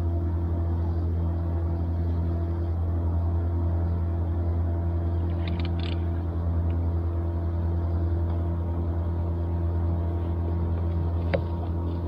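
Boat motor running with a steady low hum. A single sharp click comes near the end.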